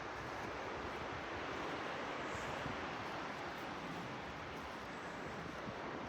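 Sea waves washing on the shore: a steady wash of surf.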